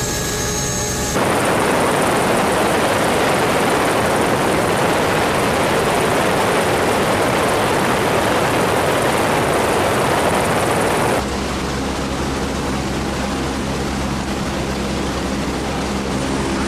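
Helicopter noise with no speech: a steady engine hum with several held tones, then about a second in a louder, even rushing noise that lasts about ten seconds, giving way near eleven seconds to a lower, steady hum with several held tones.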